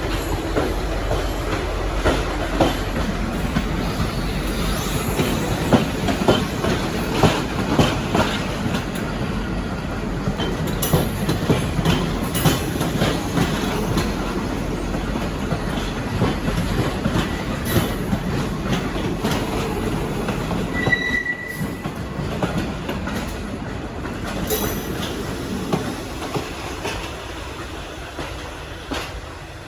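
V/Line passenger train rolling along the track with a steady rumble and irregular clicking and clattering of wheels over rail joints, and a brief high wheel squeal about two-thirds of the way through. The sound eases off near the end.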